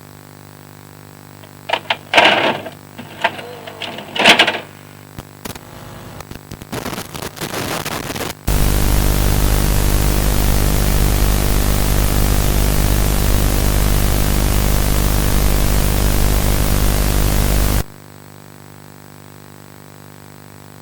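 Faint steady electrical hum under a few short distorted bursts and crackles, then a loud burst of static hiss for about nine seconds that cuts off abruptly, leaving the hum.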